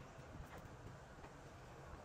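Near silence: faint background hiss with a couple of faint ticks.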